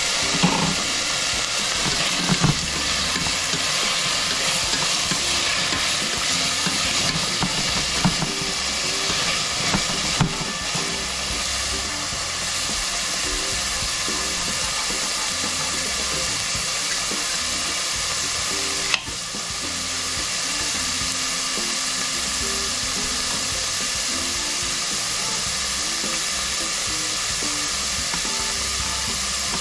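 Cubed zucchini frying in hot olive oil in a stainless steel pan over medium heat: a steady, loud sizzle. A few knocks in the first ten seconds and one sharp click about two-thirds of the way through.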